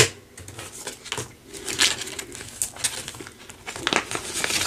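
Paper banknotes and a clear plastic zippered binder pouch rustling and crinkling as bills are handled and slipped into the pouch, with one sharp click at the very start.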